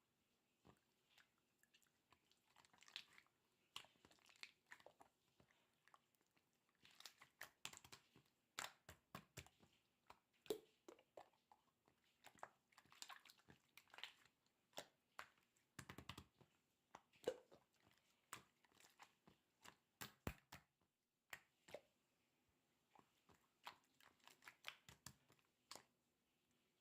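Slime being squished and pressed by hand, giving irregular runs of small sharp clicks and crackling pops, with a brief pause about three quarters of the way through.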